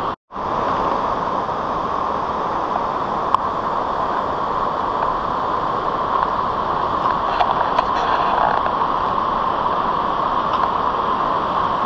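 Steady rush of a stream flowing through a narrow rock gorge, with a brief dropout just after the start. A few faint clicks sound over it, about three seconds in and again between seven and nine seconds.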